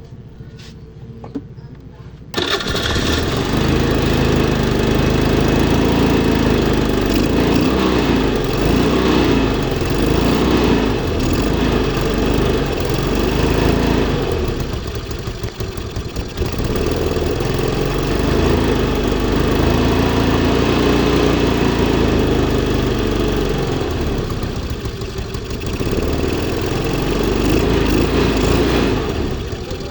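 A 125 motorcycle's engine catches about two seconds in and keeps running, its idle surging up and down with two noticeable dips. The unsteady idle is the sign of an air leak, which the mechanic puts down to a crushed intake manifold insulator.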